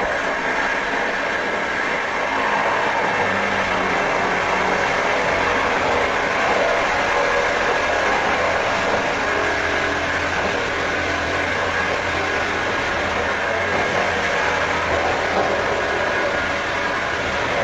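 Electric drill running steadily and without pause, a dense, even mechanical whir with a low hum underneath.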